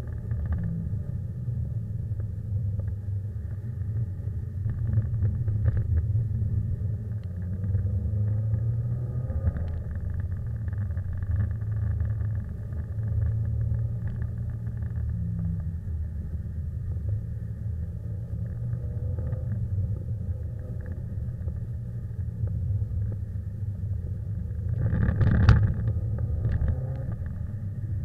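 Subaru Impreza's flat-four engine and tyre noise heard from inside the cabin as the car is driven hard on a wet track: a steady low rumble, with a louder burst about 25 seconds in.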